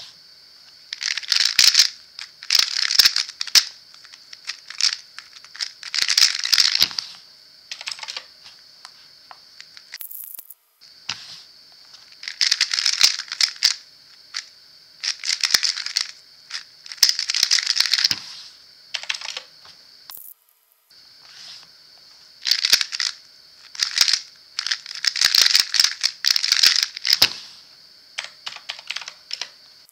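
Angstrom MagLev MGC Square-1 puzzle being turned at speed: fast plastic clicking and rattling of its layers in clusters of a second or two, with short pauses between.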